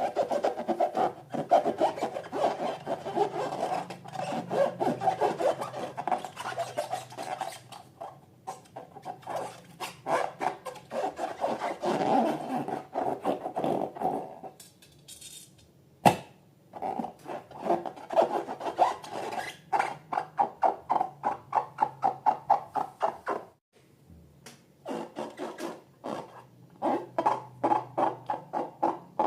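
Rapid, rhythmic squeaky rubbing of rubber balloons, stroke after stroke, broken by two short pauses, with a single sharp click about halfway through.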